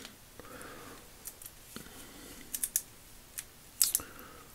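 Light metallic clicks and taps of a hex-bit screwdriver working the pin that holds the anvil in a breaker bar's flex head, a handful of scattered clicks, several close together in the middle and near the end.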